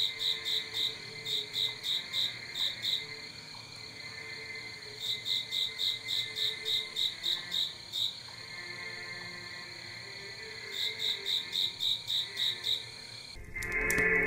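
Night ambience of crickets chirping in trains of about four chirps a second, pausing for a couple of seconds between trains, over a faint low pulsing. Music swells in near the end.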